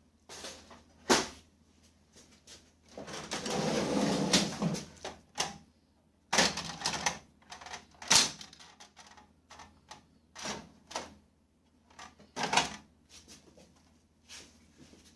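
Irregular clicks and knocks from an HP LaserJet M5035 laser printer, with a denser rattling stretch of about two seconds about three seconds in.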